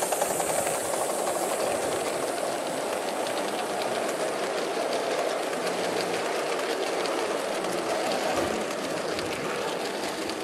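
Gauge 1 model trains running past on garden track: their wheels click rapidly over the rail joints against a steady rushing noise, which eases off a little near the end.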